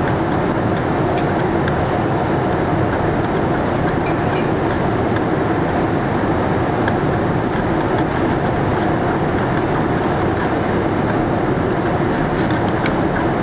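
Steady cabin noise of a Boeing 787-8 in flight, the rushing of airflow and its Rolls-Royce Trent 1000 engines with a faint steady hum. A few faint ticks.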